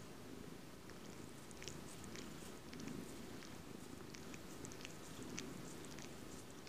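Domestic cat purring steadily and close up, with scattered faint small clicks from about a second in.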